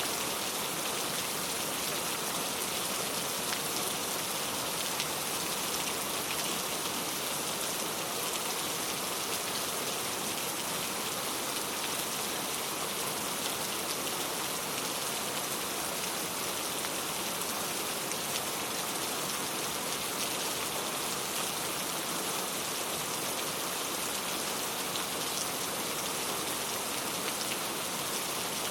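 Steady rain falling, with a dense patter of drops striking a surface.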